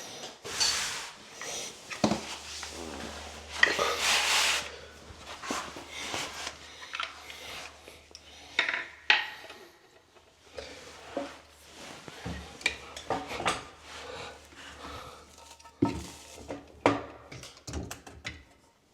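Metal hand tool clinking and scraping in irregular bursts as a new bathroom faucet's mounting nut is tightened from under the sink.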